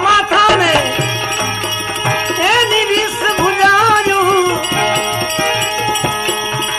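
Gujarati bhajan music without words: a gliding melody line over steady held tones, with regular drum strokes and jingling bell-like percussion.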